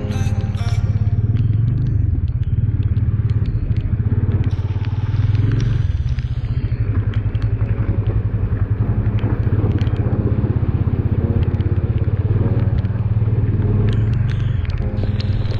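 Yamaha motorcycle engine running steadily at low road speed, with light crunching and clatter from the tyres over a wet gravel road.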